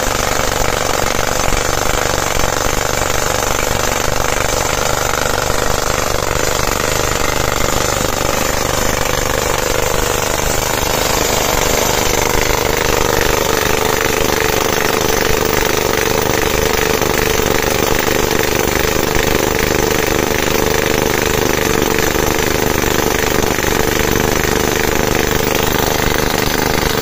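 Down-the-hole pneumatic hammer of a JK590 drill rig drilling into rock: a steady, rapid hammering, with compressed air blasting dust and cuttings out of the hole.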